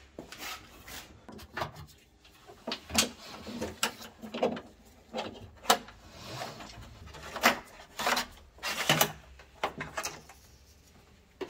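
Irregular clicks, knocks and rattles of hands working loose the wiring loom in a car's trunk: plastic connectors, clips and relay mounts being handled and pulled, with a brief rustle in the middle.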